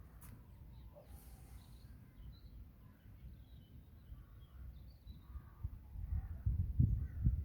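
Outdoor ambience of faint, scattered bird calls over a low rumble that grows louder near the end.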